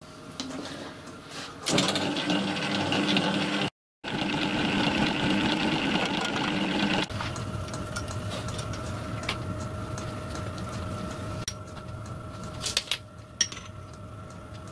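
Small milling machine starting up and running with a steady hum, which stops suddenly about seven seconds in. A quieter steady hum follows, with a few light metallic clicks near the end.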